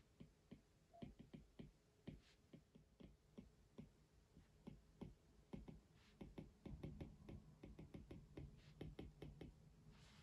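Soft, irregular tapping and clicking at a desk, several taps a second, over a faint low hum.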